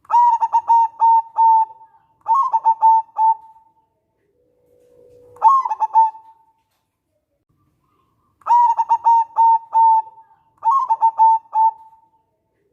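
Zebra dove (perkutut) song: five phrases of quick staccato cooing notes on one pitch, with short pauses between them, two of the phrases opening with a lower drawn note.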